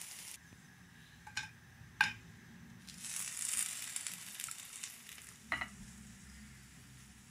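Food sizzling in hot fat in a frying pan, swelling in the middle, with a few sharp clicks of utensils against the pan.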